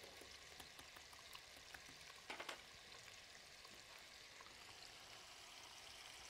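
Faint, steady sizzle of quail eggs frying in a little oil in a nonstick pan over low heat, with one brief soft knock about two and a half seconds in.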